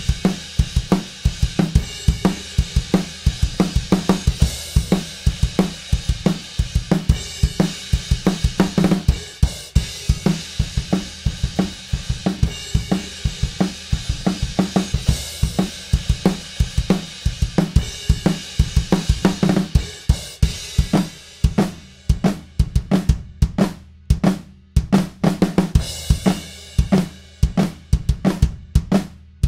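Recorded rock drum kit playing back through a mix: kick, snare, hi-hats and cymbals in a steady beat. It is heard with the sample-replaced kick and snare layers switched out and then back in, the samples adding punch to the kick and snare.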